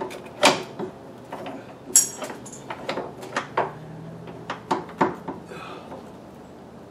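Irregular metallic clinks and knocks of hand tools against parts in a VW Golf Mk4's engine bay while the air-conditioning system is being removed, with a sharp ringing clink about two seconds in.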